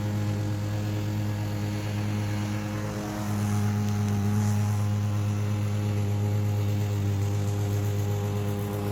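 Masport Rotarola petrol push mower's engine running steadily while mowing grass, a constant hum that grows a little louder about three seconds in.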